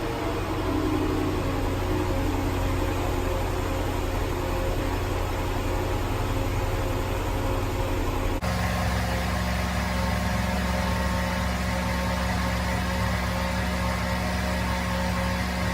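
Car engine idling steadily just after being started and revved. About eight seconds in the sound changes abruptly to a steadier, more even hum with a clear low tone.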